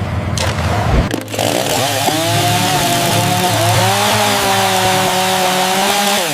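A power tool's motor running at a steady, slightly wavering pitch, after a low rumble in the first second; it cuts off just before the end.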